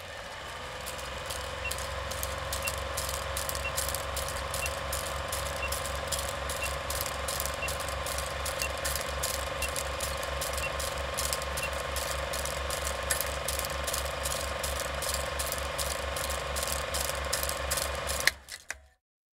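Old film projector clatter: a steady mechanical rattle of about three to four beats a second over a constant hum, with faint short high blips about once a second for the first ten seconds or so. It cuts off suddenly with a pop near the end.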